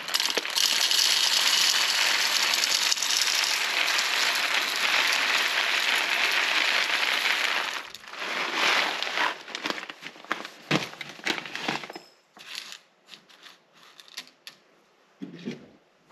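Coffee machine running with a steady crackling rush for about eight seconds, then scattered clicks and knocks as it is handled.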